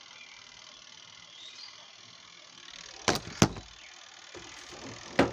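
Faint hiss, then two sharp mechanical clicks about a third of a second apart roughly three seconds in, and another near the end, as the washing machine is worked on to be opened up.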